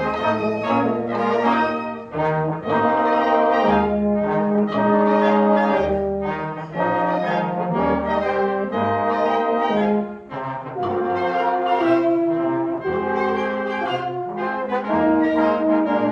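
Concert band playing, with brass to the fore.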